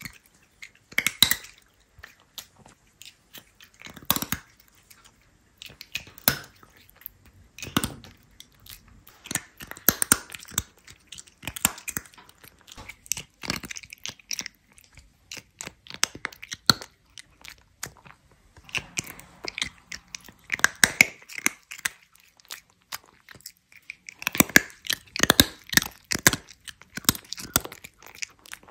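Cat crunching and chewing right at the microphone, in irregular bursts of sharp crunches with short pauses between them.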